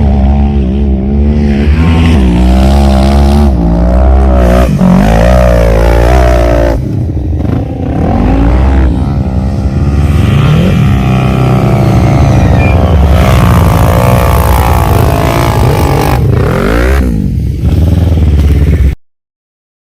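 ATV (quad bike) engine running loud and revving up and down again and again, its pitch rising and falling with the throttle. The sound cuts off suddenly near the end.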